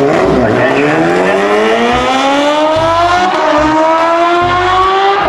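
Sport motorcycles launching off the line in a drag race. The engines rev hard, their pitch dipping briefly at the launch and then climbing steadily, with a short drop about three seconds in.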